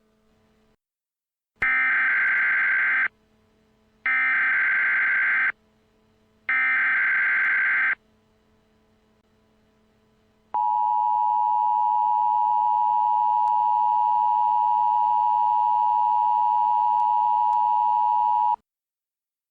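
Emergency Alert System tones: three digital SAME header bursts, each a harsh data screech of about a second and a half, then after a short pause a long steady attention tone of about eight seconds. Together they announce the start of an emergency alert broadcast.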